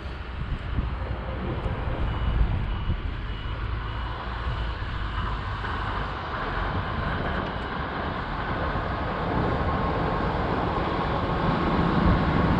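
Steady vehicle rumble that grows louder toward the end, with a faint high beep repeating about twice a second for a few seconds near the start, like a vehicle's warning beeper.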